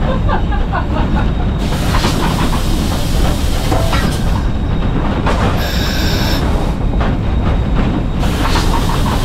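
Cab of coal-fired steam locomotive 491 under way: a steady heavy rumble and rattle, with clanks and scrapes of the fireman's shovel as he works fine slack coal from the tender into the firebox. A hiss comes in about a second and a half in, drops out around four and a half seconds, and returns for a few seconds more.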